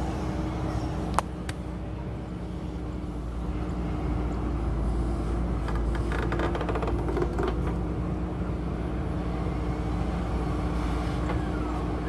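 JCB 3DX backhoe loader's diesel engine running under load as the backhoe arm digs, with a sharp clank about a second in. It gets louder about three and a half seconds in, and there is a short run of clatters around the middle.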